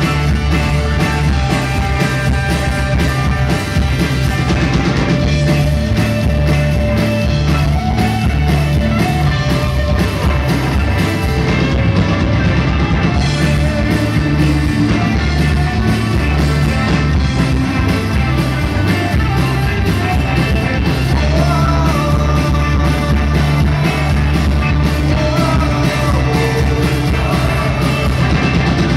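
Live rock band playing loudly: bass guitar and drums keep a steady groove under sustained, bending melody lines.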